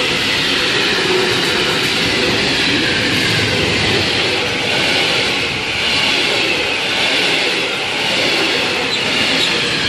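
Freight train of sliding-wall wagons passing close at speed: a loud, steady rumble and rattle of wheels on the rails, with a high hissing ring above it.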